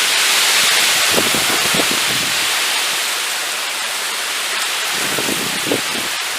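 Heavy rain falling steadily in a thunderstorm, a dense even hiss with scattered close drips and splashes, most of them about a second in and again near the end.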